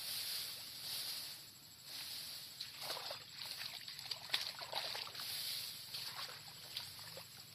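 Someone wading through a flooded rice paddy, pushing through tall rice plants: water sloshing and splashing and leaves rustling in uneven bursts, about one a second.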